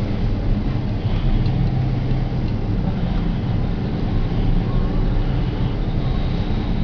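Steady low hum of a running electric motor or machine, with a faint high whine coming in near the end.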